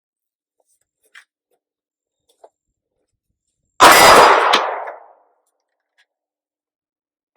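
A single shot from a Glock 43X 9mm pistol with the steel target ringing as the bullet strikes it, the ring dying away over about a second. A second sharp knock follows under a second after the shot.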